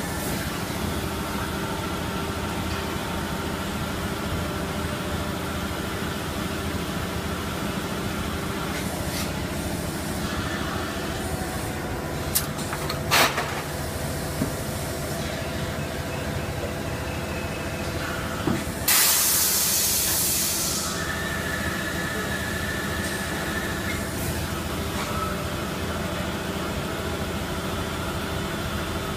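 PET preform injection moulding machine running a 32-cavity mould through a cycle: a steady machine hum throughout, a few sharp clanks around the middle as the mould opens, then a loud hiss of air lasting about two seconds.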